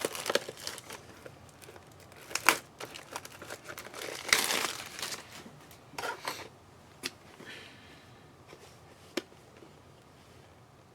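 Plastic wrapping being torn and crinkled as a sealed hockey card hobby box and its packs are opened, with a loud rip about four seconds in. After that come a few light clicks and taps of handling.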